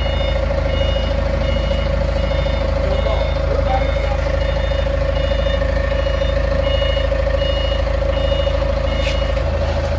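A heavy vehicle's reversing alarm beeping about every two-thirds of a second, over a steady engine hum.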